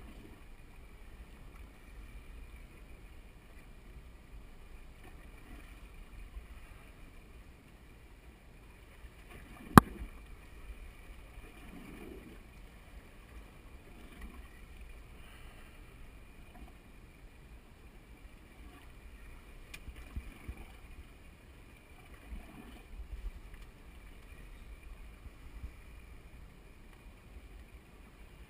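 Water lapping against the hull of a boat at sea, with a low rumble and soft splashes every few seconds. A single sharp knock comes about ten seconds in.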